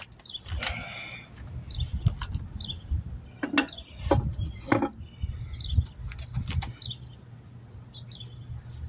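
A car tire being handled and set down onto the cone of a bubble wheel balancer, giving a few knocks and clunks a little past the middle. Birds chirp faintly in the background.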